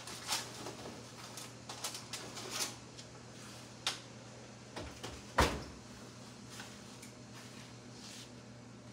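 Lidded meatloaf pan being handled and set down: light clicks and knocks, with one louder clunk about five and a half seconds in, over a steady low hum.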